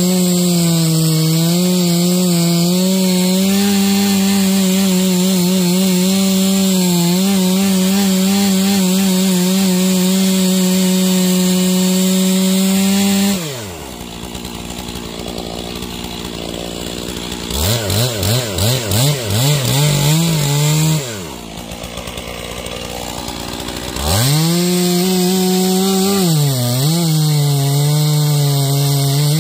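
Stihl MS461 two-stroke chainsaw running at full throttle while bucking Douglas fir logs. About halfway through it drops to idle, is blipped about eight times, then goes back to full throttle, its pitch dipping briefly under load in the cut near the end.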